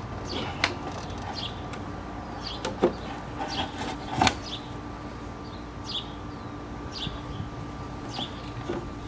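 A few sharp plastic clicks and knocks as a BMW E46 M3 washer fluid reservoir is handled and pushed into its mounting, the loudest about four seconds in. A bird chirps briefly about once a second in the background.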